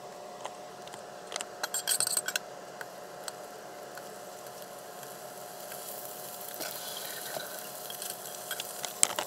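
Slices of jalapeño SPAM laid into hot oil in a cast-iron skillet sizzling, the hiss building over the second half. A brief clatter of utensils about two seconds in, and light clicks of a fork against the pan.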